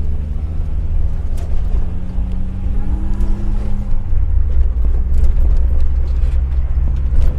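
Volkswagen Kombi van on the move, its engine running with a steady low drone under road noise.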